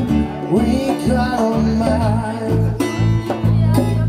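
A live band playing an acoustic-guitar-led song: strummed acoustic guitar over steady bass notes, with a wavering melody line above and a few sharp percussive hits.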